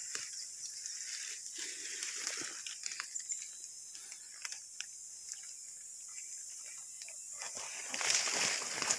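Chayote vines and undergrowth rustling, with scattered small snaps and crackles of stems as the plants are handled and pushed through, over a steady high hiss; the rustling grows louder near the end.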